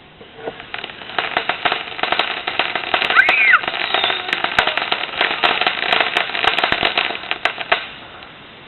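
A string of firecrackers going off in a rapid, uneven crackle of sharp pops for about seven and a half seconds, with a brief whistle that rises and falls about three seconds in.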